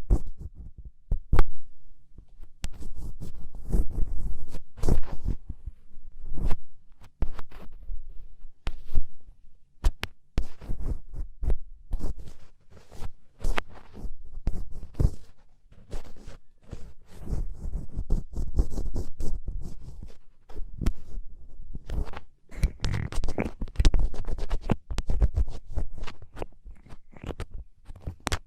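Ear pick scraping inside an ear canal, close to the microphone: irregular scratches and clicks over low rumbling thuds, with no steady rhythm.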